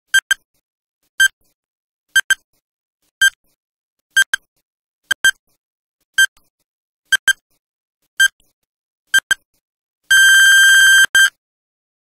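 Countdown-timer beeps: a short high beep about once a second, some doubled, ten times, then a long beep lasting about a second and one final short beep.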